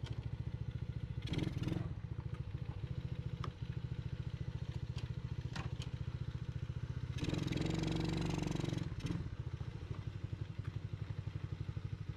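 Tao/Coolster 125cc ATV engine running at a steady putter, given a short burst of throttle about a second and a half in and a longer one of nearly two seconds near the middle. It pulls on a freshly replaced clutch.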